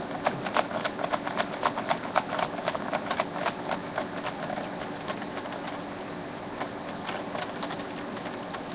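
Quick irregular clicks and taps of a screwdriver working screws out of a ThinkPad laptop's plastic bottom case, thinning out after about five seconds, over a faint steady hum.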